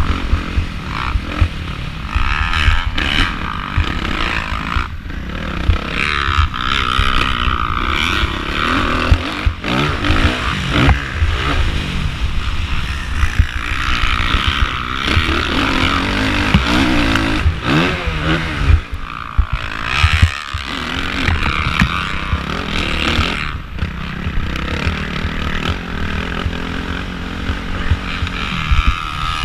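2013 Suzuki RM-Z450's single-cylinder four-stroke engine being ridden hard on a motocross track, revving up and down again and again through the gears.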